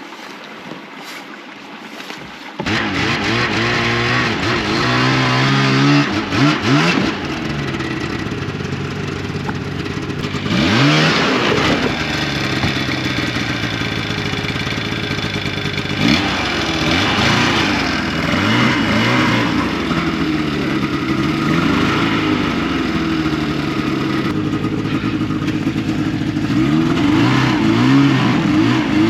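Snowmobile engine running under throttle, its pitch rising and falling repeatedly as the sled is ridden. It comes in loud and abruptly about two and a half seconds in, after a quieter windy stretch.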